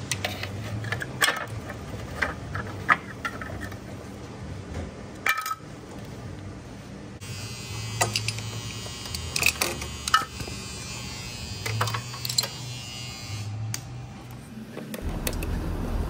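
Short runs of a small power tool buzzing, mixed with clicks and clinks of metal tools and parts, as the refrigerator compressor's mounting bolts are taken off.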